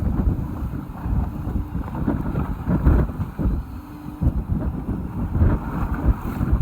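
Wind buffeting the microphone aboard a small fishing boat, in irregular low gusts over the boat's background noise.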